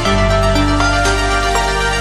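Background music: sustained pitched notes and low bass, with the chord changing at the start and new notes coming in about every half second.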